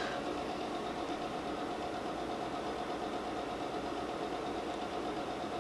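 A steady mechanical hum with a faint constant whine, unchanging throughout.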